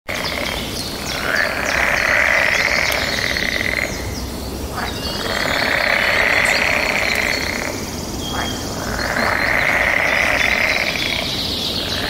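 Birds chirping over a loud animal chorus that swells and fades in waves about every four seconds.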